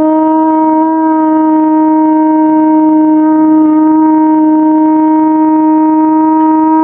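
A blown horn sounding one long, loud note, sliding up into pitch at the start, then held steady.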